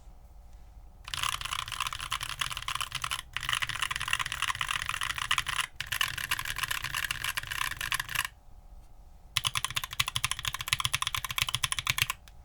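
Fast typing on a mechanical keyboard with stock Keebfront Doom tactile switches (long-pole stem, two-stage spring, nylon bottom and HDPE top housings), giving dense, poppy keystroke clacks in runs broken by short pauses.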